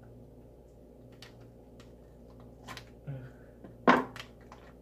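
Hands handling a whole raw chicken on a wooden cutting board: scattered soft clicks and taps, with one sharper knock about four seconds in.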